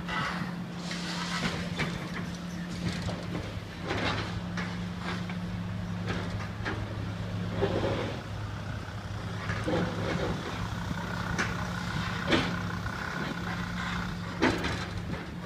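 High-reach demolition excavator's diesel engine running steadily, with irregular knocks and clatter of brick and debris as the boom's attachment breaks into the brick building.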